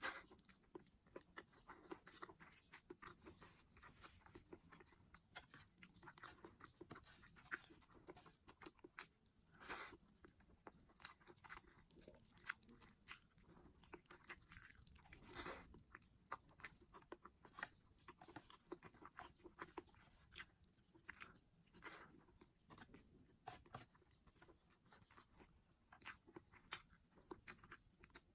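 A person chewing and biting food close to the microphone: a steady run of small wet mouth clicks and crunches, with two louder crunching bites about ten and fifteen seconds in.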